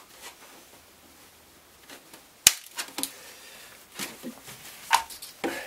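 A few separate sharp clicks and light knocks: scissors snipping small corners off the edge of a plastic stormtrooper helmet shell, and the shell being handled. The sharpest snap comes about halfway through.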